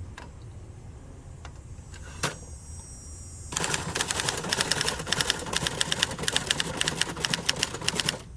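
Adler Gabriele 25 manual typewriter: a single key strike, then, about three and a half seconds in, a fast run of typing with keys and typebars striking the platen in quick succession, stopping abruptly just before the end.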